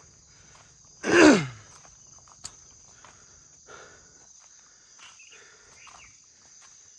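Crickets or other insects chirring steadily. About a second in comes a single loud, short cry that falls steeply in pitch.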